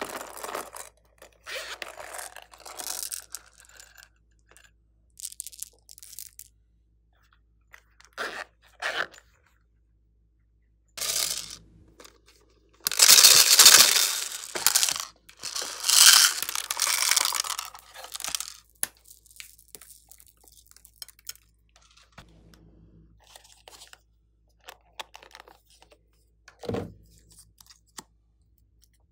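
Hands handling plastic toy makeup cases: scattered clicks, scraping and crackling of plastic, with a louder stretch of a few seconds near the middle.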